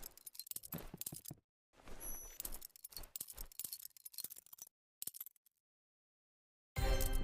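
Butterfly knife (balisong) being handled and flipped: a run of quick metallic clicks, clacks and rattles of the swinging handles, broken by two stretches of dead silence. Music comes back in near the end.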